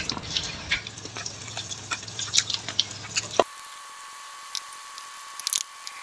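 Battered chicken pieces frying in hot oil in a wok: scattered crackles and pops from the oil. A little past halfway the sound thins abruptly to a faint steady high tone with only occasional pops.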